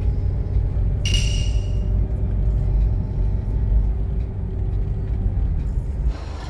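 Steady low road and engine rumble heard inside a car's cabin while it drives, with a brief bright ringing sound about a second in. The rumble drops shortly before the end.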